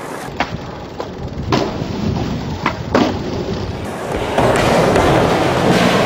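Skateboard rolling, with four sharp clacks in the first three seconds; the rolling gets louder about four seconds in.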